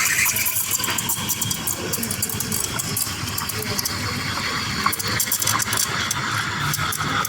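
Espresso machine steam wand steaming milk in a pitcher: a steady loud hiss peppered with short crackling ticks, as air is drawn into the milk to froth it.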